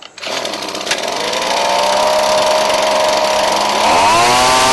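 Ryobi backpack blower's two-stroke engine fires up and runs at a steady speed, then revs up higher about four seconds in. It is running now on a new fuel line that replaced a split one, which had kept it from running.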